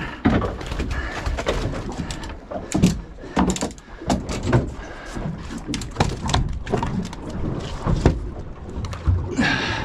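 Irregular knocks, clatters and thumps of fishing gear and a small pink snapper being landed and handled in a boat, over low wind rumble.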